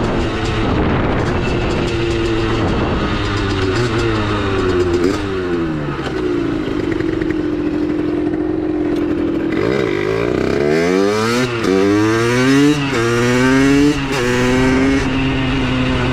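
Two-stroke 70cc Minarelli AM6 engine of a Vent supermoto, with Giannelli expansion chamber and DBR silencer, running under way. Its pitch falls off, holds steady for a few seconds, then climbs sharply several times with quick drops between them in the last third as it accelerates through the gears.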